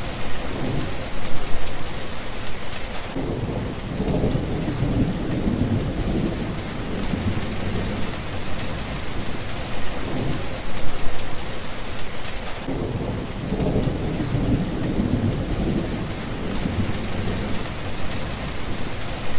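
Thunderstorm: heavy rain pouring steadily while thunder rumbles in low, rolling peals that swell and fade several times, the loudest about a second in and again around eleven seconds.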